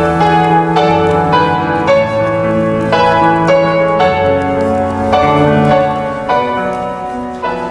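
Piano playing a slow piece of sustained chords, the notes changing about every half second to a second.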